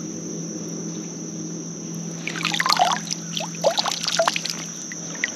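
Water splashing and dripping for about two seconds, starting a little before the middle, as a small flathead catfish is put back into the river and released.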